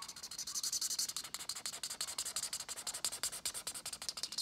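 Marker tip rubbing on sketchbook paper in quick back-and-forth strokes, colouring in an area. It makes a rapid, scratchy hiss.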